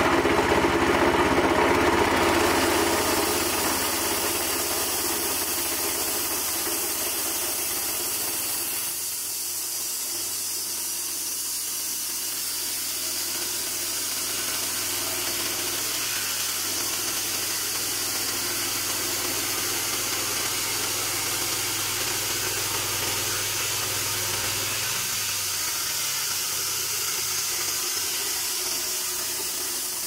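Small engine of a homemade band sawmill running steadily under load while the band blade saws lengthwise through a wooden beam, with an even hiss from the cut. It is a little louder for the first couple of seconds.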